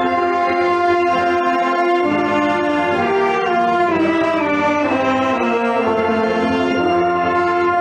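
Marching band brass section playing sustained warm-up chords together; the held notes shift to a new chord about halfway through, then hold steady again.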